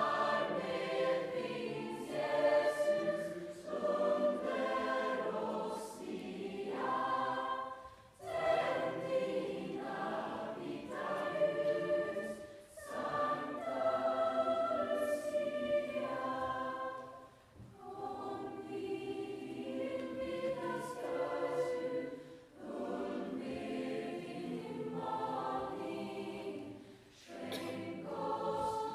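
Large choir singing in phrases of a few seconds each, with short breath pauses between them.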